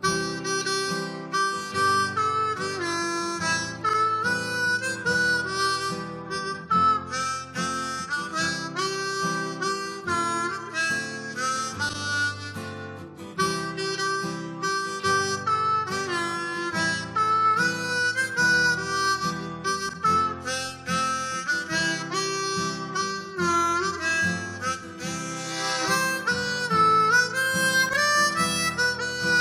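Easttop PR020 ten-hole diatonic blues harmonica playing a blues melody, with quick note changes and several notes bent downward and back up.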